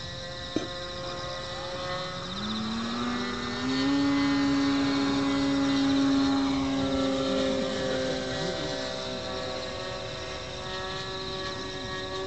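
Radio-controlled model airplane's engine, fed by an onboard fuel pump, running in flight with a propeller drone. It climbs in pitch as the throttle opens about two seconds in, is loudest a little past the middle, then holds a steady speed.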